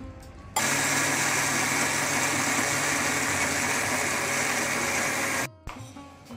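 Electric mixer grinder with a steel jar running, grinding soaked rice and urad dal with a little water into dosa batter. A loud, steady motor-and-grinding noise starts suddenly about half a second in and stops suddenly about five seconds later.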